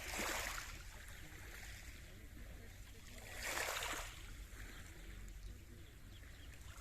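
Small waves of a calm Mediterranean Sea washing onto the shore: a soft hiss that swells and fades about every three and a half seconds, once at the start and again around the middle.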